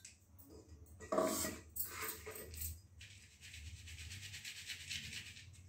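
A steel mixer-grinder jar knocked against a flour sieve to empty out ground peanut powder, with a sharp clink about a second in and a few lighter knocks after it. The powder is then shaken through the sieve's mesh as a steady, rapid rasping rustle for about two and a half seconds.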